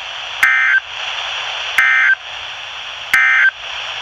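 Emergency Alert System end-of-message data bursts: three short, identical warbling digital tones about a second and a half apart, over steady radio hiss. They signal the end of the tornado warning alert.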